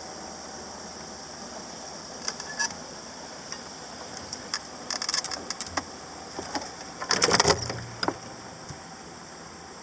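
Scattered mechanical clicks and rattles over a steady hiss, with a dense burst of clicking about seven seconds in.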